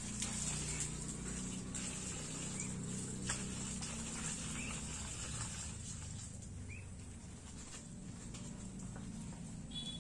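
A flock of white domestic ducks giving low, soft quacks, busiest in the first half and thinning out later, with a few faint bird chirps and one click about three seconds in.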